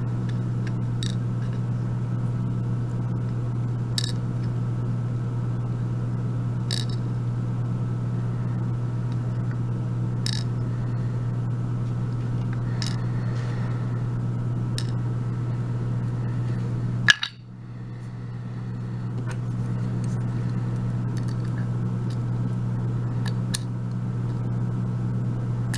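About ten small, scattered metallic clicks as lock pins and springs are tipped out of a padlock's plug and set into a wooden pin tray. The clicks sit over a steady low hum, which briefly dips after a sharper click about two-thirds of the way through.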